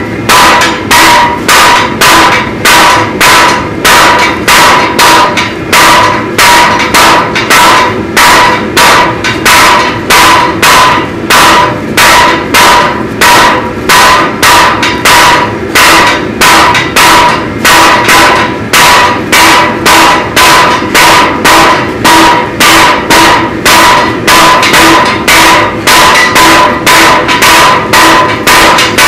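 Three blacksmiths forging by hand, their hammers striking the work on an anvil in a fast, steady, unbroken rhythm. A metallic ring from the anvil carries on between the blows.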